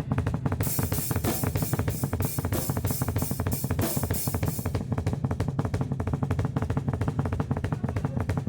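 Drum kit played in a fast, steady rhythm, with bass drum and snare hits and cymbals ringing through the first half, which drop back about halfway through.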